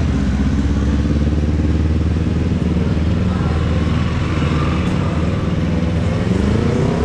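Street traffic: engines of vehicles running and passing, with a motor scooter close by and one engine rising in pitch near the end as it pulls away. Voices of passers-by run underneath.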